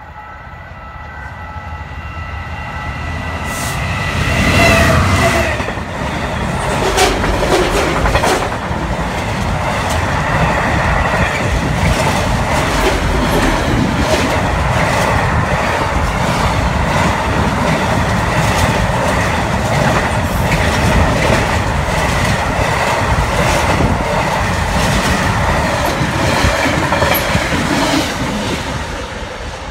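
Class 66 diesel locomotive 66096, with its two-stroke V12 engine, approaches and passes at speed hauling a container freight train; it is loudest about four to five seconds in. After that comes a long steady rumble and clickety-clack of the container flat wagons' wheels passing close by, easing slightly near the end.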